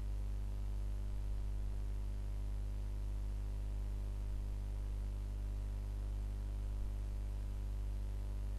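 A steady low electrical hum with a stack of faint, unchanging overtones above it. It holds at an even level with no breaks or changes.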